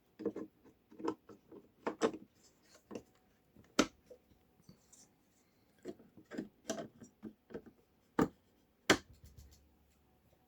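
Adapter boards being handled and snapped into the slots of a cable tester: a run of scraping and rattling handling noises, with sharp clicks about four seconds in and twice near the end.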